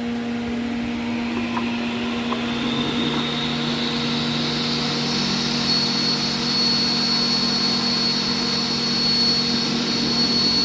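IMA Novimat edge bander starting up: its motors spin up under a steady hum, a high whine rising for a few seconds before it settles into a steady running pitch.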